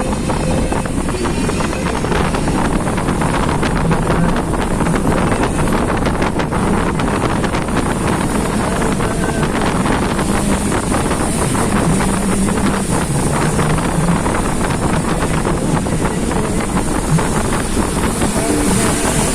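A vehicle's engine running steadily on the move, with heavy wind rushing over the microphone.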